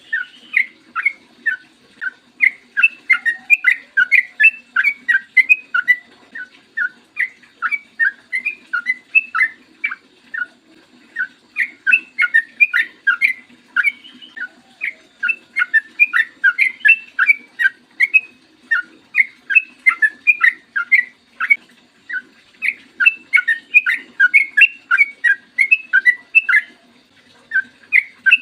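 Yellow-vented bulbul (trucukan) singing long runs of rapid, short chirping notes, phrase after phrase with brief pauses between them.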